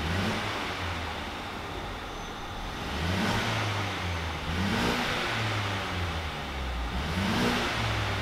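Mercedes-Benz W205 C300's 2.0-litre turbocharged four-cylinder engine through the factory stock exhaust, revved in short blips while stationary. It rises and drops back to a steady idle between blips, with a small blip at the start and three larger ones spaced a couple of seconds apart.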